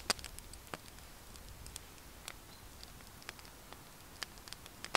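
Firewood crackling in a small wood-burning camp stove, with irregular sharp snaps a few times a second.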